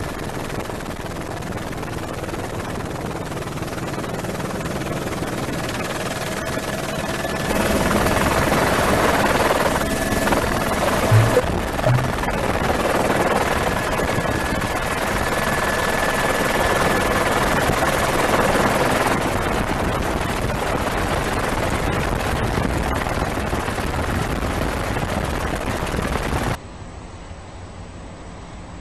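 Steady rushing noise of a helicopter's rotor and engine, heard from aboard, with a faint steady whine. It grows louder about seven seconds in, and near the end it cuts off suddenly to a much quieter background.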